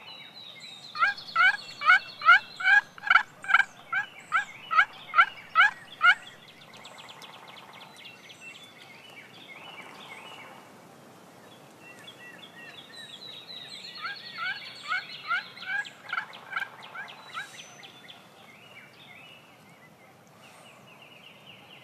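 A hand-held turkey call squeaked in a run of about a dozen quick, evenly spaced yelps imitating a hen turkey's call. A second, quieter run follows about fourteen seconds in.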